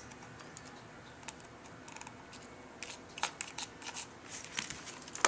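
Small irregular clicks and scrapes of a screwdriver working a stubborn Torx screw in an aluminium MacBook Pro's battery bay, coming more often in the second half, with one sharper click near the end.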